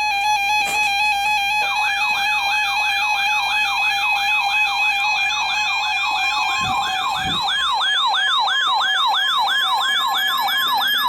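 Electronic emergency-alert tones from alert receivers announcing a weather warning. A steady alarm tone flutters between two close pitches. About two seconds in, a fast siren-like whoop joins it, rising over and over about three times a second.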